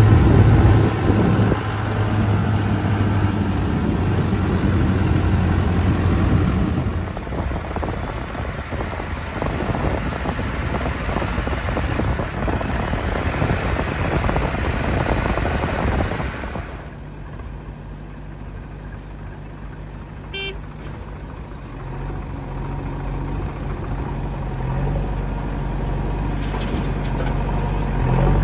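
Swaraj tractor's diesel engine running as it drives along a road, then the diesel engines of a JCB 3DX backhoe loader and a tractor at work. About seventeen seconds in the engine sound drops to a steady, quieter idle, and a short high tone sounds once a few seconds later.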